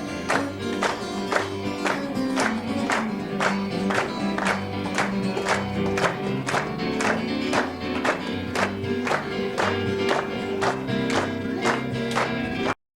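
Instrumental break of a live gospel band: guitar, bass and piano playing a steady beat of about two strokes a second under held chords. The sound cuts out suddenly near the end.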